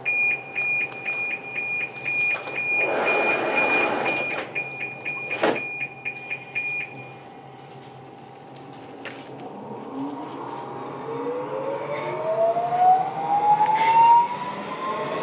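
Rapid high electronic beeping, about three beeps a second, for the first seven seconds. Then a Budapest Metro Line M4 train (Alstom Metropolis) moves along the platform, its electric traction whine rising steadily in pitch and growing louder.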